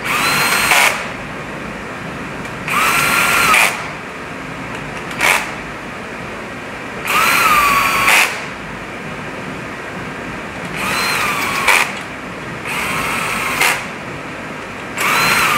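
Cordless drill-driver running cylinder head bolts down, in about seven short runs of roughly a second each. The motor's whine rises as it spins up and drops as it slows at the end of each run.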